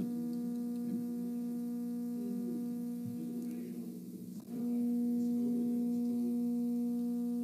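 Steady electrical mains hum, a low constant tone with overtones, from the microphone and sound system. It fades briefly about four seconds in and comes back slightly louder.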